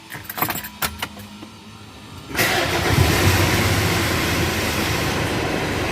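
A few sharp clicks, then the Mitsubishi L200 Triton's 3.2 four-cylinder turbodiesel starts about two seconds in and keeps running steadily. The engine has a worn timing chain.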